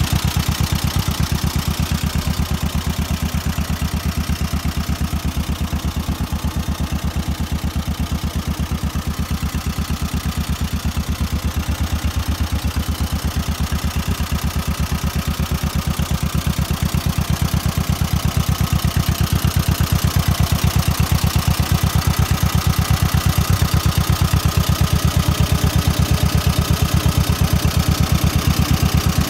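A 1952 John Deere 40-S tractor's two-cylinder engine idling steadily with an even firing beat. It gets a little louder about halfway through.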